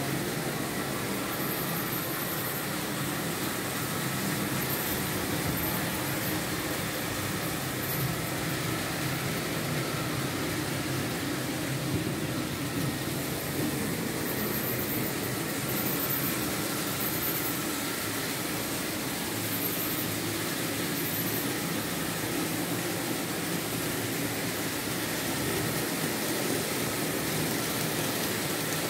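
Several Märklin H0 model trains running at once on a layout: a steady whirr of their small electric motors and wheels on the track.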